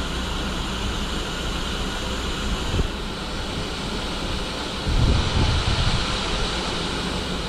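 Steady hiss and rumble from GWR small Prairie 2-6-2T steam tank locomotive No.5542 on the move, growing louder for a second or so about five seconds in.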